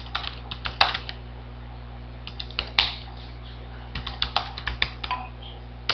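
Typing on a computer keyboard: irregular key clicks in short runs separated by pauses of about a second, over a steady low electrical hum.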